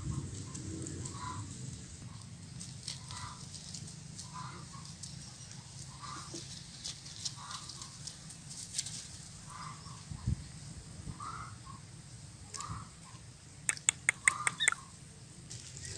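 A chicken clucking, one short call about every second, with a quick run of sharp clicks near the end.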